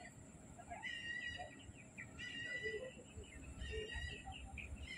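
A bird calling over and over: a call of steady pitch about half a second long, repeated about every second and a half.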